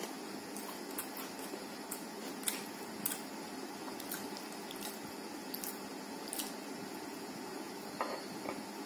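Soft, wet squishing and scattered small clicks of fingers tearing rumali roti and mixing it into tarka, then eating sounds of the bite near the end, over a steady hiss.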